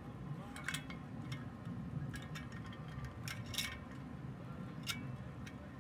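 Faint, irregular light clicks and small taps from handling the stainless steel pressure cooker lid while its rubber sealing gasket is fitted. A low steady hum runs underneath.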